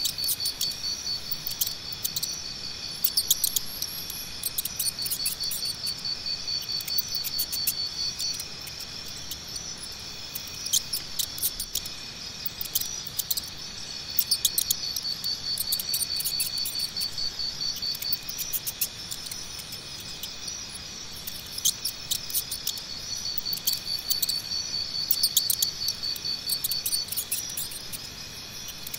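Crickets chirping in a rapid high pulsed trill that comes in bouts of several seconds with short pauses between, over a faint steady insect hum. Sharp little clicks are scattered throughout.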